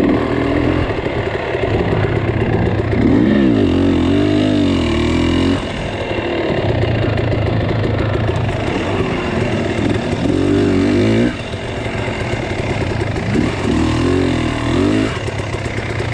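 An off-road vehicle's engine running and being revved up and down, with three louder swells in pitch, the first about three seconds in, another around ten seconds and a last one near the end.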